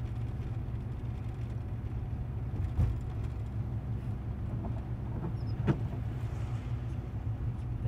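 Steady low rumble of road and engine noise heard from inside a moving car's cabin. Two brief clicks come about three seconds apart.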